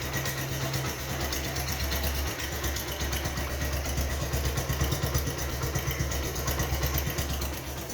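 Suzuki Yes 125 motorcycle's single-cylinder four-stroke engine idling through a short aftermarket exhaust, with a steady but slightly uneven pulsing beat.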